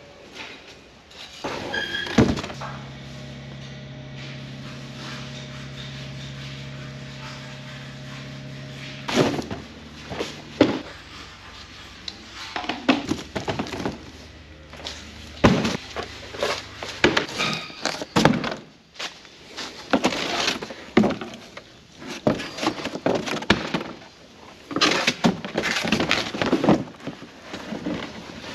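Repeated knocks, thuds and clunks of hands-on work in a shop, irregular and close together through the second half. A steady hum runs for several seconds early on.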